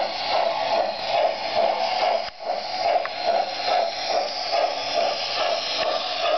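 MTH model of Norfolk & Western J-class steam locomotive 611 running on the track, its onboard sound system playing steam chuffs through a small speaker at about two chuffs a second, with a brief drop-out a little over two seconds in.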